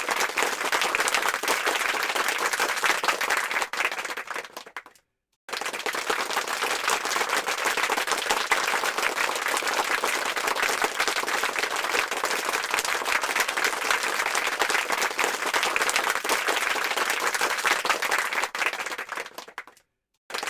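Rousing applause from a large crowd, dense clapping. It dies away about five seconds in, breaks off into a moment of silence, starts again at full strength, and tails off again near the end.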